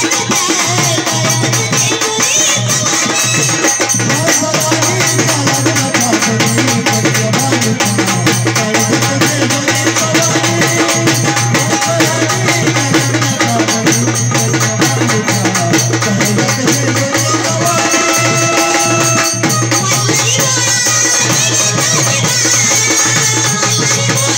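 Live Maharashtrian Waghya-Murali folk music: fast, dense drumming keeps a steady beat under a woman's wavering sung melody.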